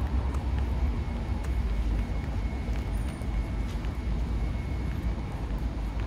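A steady low outdoor rumble that wavers unevenly in strength, with a faint thin high tone in the middle and a few faint ticks.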